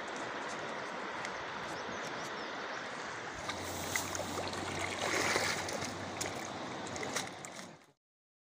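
River water rushing over stones, a steady hiss with a few clicks and knocks mixed in; it cuts off suddenly near the end.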